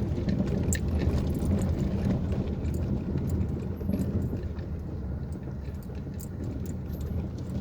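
Car driving over a badly potholed road, heard from inside the cabin: a steady low rumble with scattered clicks and knocks.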